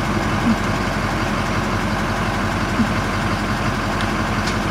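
A vehicle's engine idling steadily, heard from inside the cab.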